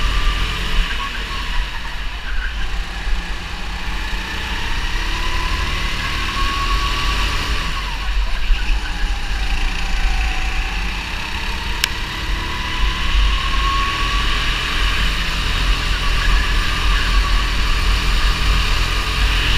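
270 cc rental go-kart engine heard from onboard, running hard with its pitch rising on the straights and dropping through a corner about ten seconds in, over a steady low rumble.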